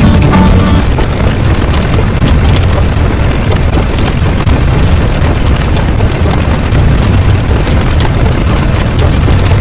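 Loud, steady rumbling noise, heaviest in the low end and with no clear pitch, like a large engine or an explosion's roar. A few musical tones die away in the first second.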